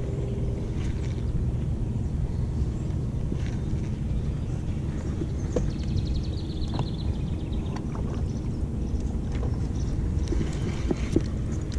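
A steady low rumble runs under small handling clicks from a baitcasting reel, with a short run of fast, even ticks about halfway through as the reel is worked and cast.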